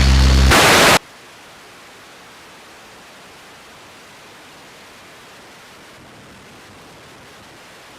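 Air traffic control radio feed: a transmission ends with a brief burst of squelch noise that cuts off sharply about a second in, leaving a low, steady radio hiss.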